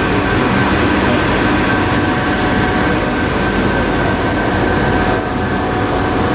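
Steady hum of running industrial machinery: several steady tones over an even noise, with a slight dip about five seconds in.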